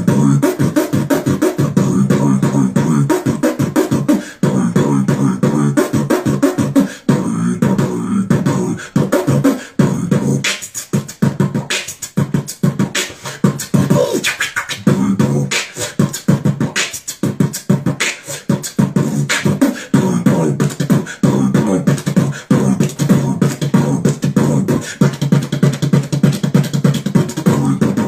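A man beatboxing: fast mouth-made kick, snare and hi-hat sounds over a low hummed bass tone, with a few brief breaks.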